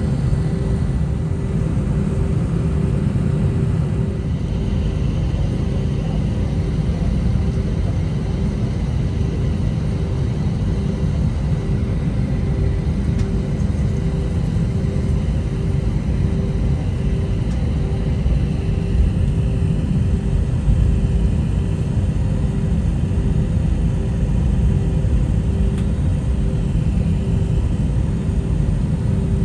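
Airliner cabin noise while taxiing: a steady low rumble of the jet engines at low power and the rolling aircraft, with a faint pulsing hum.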